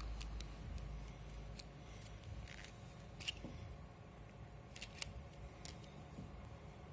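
Quiet room tone with a faint steady hum and a scattering of small, sharp clicks at irregular moments.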